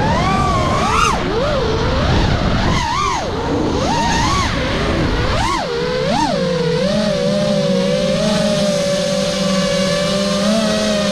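FPV quadcopter's brushless motors and propellers whining, the pitch swooping up and down with quick throttle changes over rushing wind noise during fast flight. About six seconds in, the wind noise drops away and the motors settle into a steadier whine as the quad slows.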